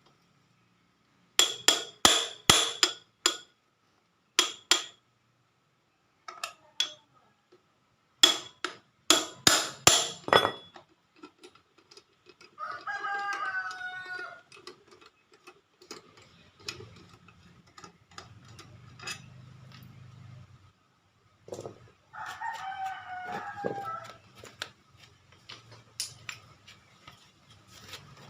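Quick runs of sharp metallic strikes, several taps a second in groups, through the first ten seconds or so. Later a rooster crows twice.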